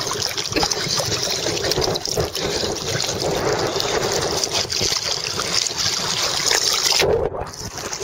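Water splashing and lapping right at the microphone as it rides at the surface of choppy water, with wind buffeting the mic; about seven seconds in the sound briefly turns dull.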